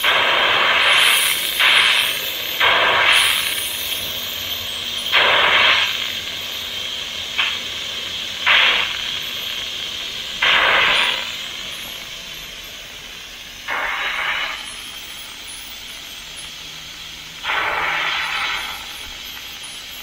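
Instant Pot pressure cooker's steam release valve venting during a quick release: a steady hiss with louder spurts every one to three seconds, slowly weakening as the pressure in the pot drops.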